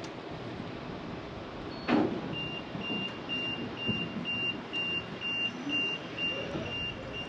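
Steady rumbling background noise with a sharp knock about two seconds in, then a short high-pitched electronic beep repeating about twice a second.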